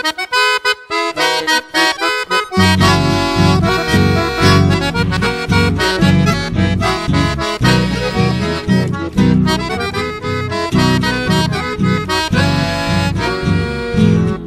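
Chamamé song intro: an accordion plays the lead melody, and a bass line with rhythm accompaniment comes in about two and a half seconds in.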